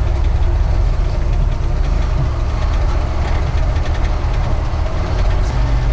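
GAZ-66 truck's V8 petrol engine being tow-started: it is turned over by the rolling wheels under a steady low drone of driveline and engine noise. A few pops show it trying to fire without catching.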